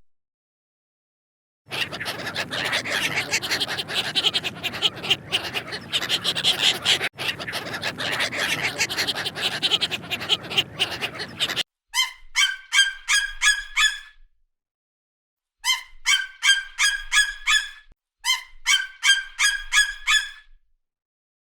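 Birds calling: a dense flock chatter for most of the first half, then three runs of quick honking calls, about four a second, each call dipping in pitch.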